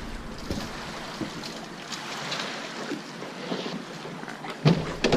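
Light wind and gently moving water around a small open boat, with a couple of sharp knocks near the end.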